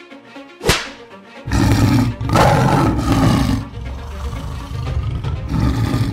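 Tiger roar sound effect, loud and growling, starting about a second and a half in and easing off after about two seconds before swelling again near the end, over background music. A short sharp hit sounds just before the roar.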